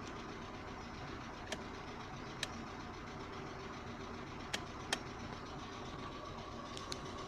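Audi 80 B3 petrol engine idling with knocking from its hydraulic valve lifters, a sign that the lifters are not holding oil pressure. A few sharp, irregular clicks stand out over the steady running.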